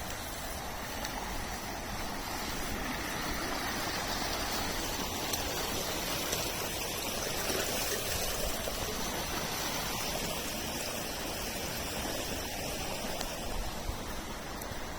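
Creek water rushing steadily, a little louder through the middle stretch.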